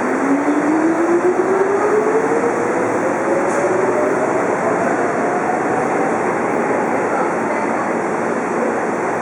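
Tobu 9000-series electric train (set 9104F) pulling away, its chopper control giving a whine that rises steadily in pitch as it accelerates over rolling noise. The uploader calls this summer chopper sound an abnormal noise.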